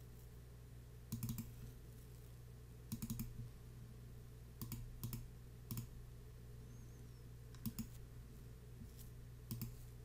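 Computer mouse buttons clicking: about seven clicks and quick double-clicks spread through, over a low steady hum.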